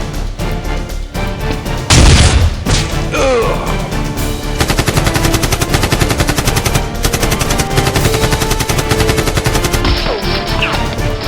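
Action soundtrack music with rapid machine-gun fire sound effects. A loud hit comes about two seconds in, and dense rapid fire runs from about halfway on.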